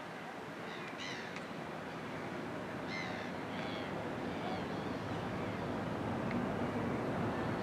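Birds giving short, high calls several times over a steady background rumble that grows gradually louder. A low, steady engine-like hum comes in near the end.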